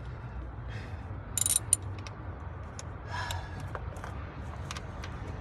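Metal hand tools, a socket wrench and extension, clicking and clinking as they are handled and fitted, with short scrapes about one and a half and three seconds in.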